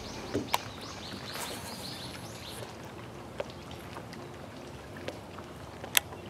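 A bird calling, a quick series of short high chirps that fades out a couple of seconds in, over a faint steady outdoor hiss. A few sharp clicks or knocks break in, the loudest near the end.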